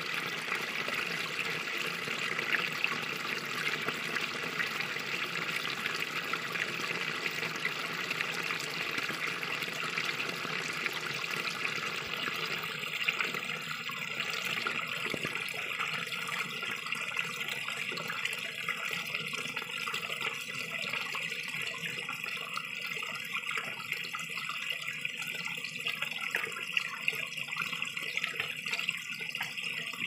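A small mountain stream spilling down a narrow gap between boulders, splashing steadily. About twelve seconds in the sound grows a little thinner.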